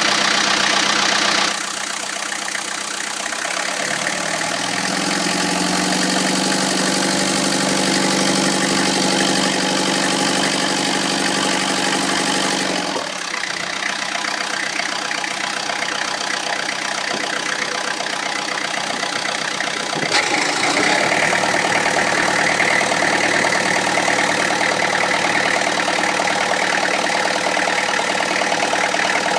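Peugeot Indenor diesel engine idling from a cold start, a steady diesel clatter. Its tone shifts noticeably a few times: about a second in, at about the middle, and again about two-thirds through.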